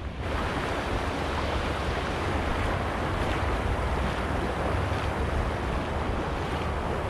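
Steady wind buffeting the microphone, a low rumbling rush that picks up just after the start.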